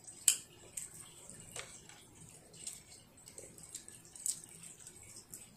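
Scattered light clicks and taps of a child eating with chopsticks from a plate, the sharpest about a third of a second in, with a few more spread irregularly after.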